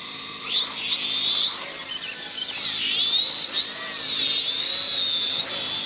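F69 toy quadcopter's motors and propellers spinning up for takeoff and lifting off: a high whine that climbs about half a second in, dips briefly around three seconds in, then rises again and wavers with the throttle.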